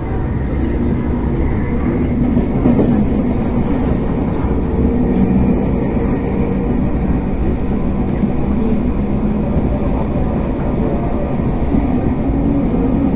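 RER B commuter train running between stations, heard from inside the car: a steady rumble with sustained whining tones from the traction equipment that shift a little in pitch. This is the strange traction noise that the rider finds odd.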